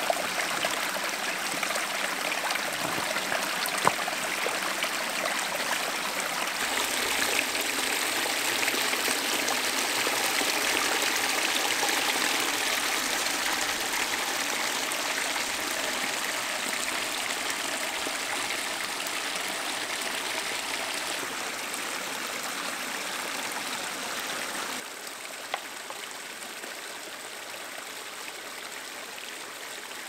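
A shallow, rocky creek running and trickling over stones in a steady rush of water. It grows louder a few seconds in and drops quieter near the end.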